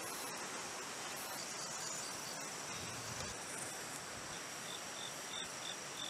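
Insects calling: a steady high-pitched trill, with a second insect giving short, evenly spaced high chirps about once or twice a second, starting again about halfway through.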